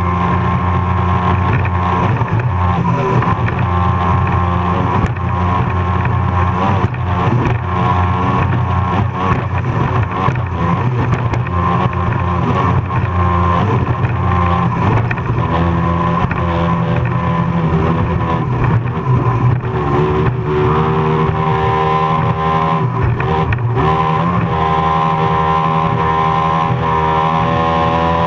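Offshore race boat's engines running at full speed, their pitch wavering and shifting as the hull rides the waves, with scattered sharp knocks as the hull slams the chop.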